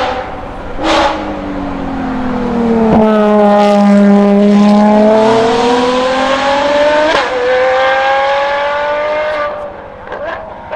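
Ferrari FXX K Evo's 6.3-litre V12 racing engine at full song. Two sharp cracks come in the first second. The engine note then falls as the car passes and climbs hard under acceleration, with a gear change about seven seconds in. It fades away near the end.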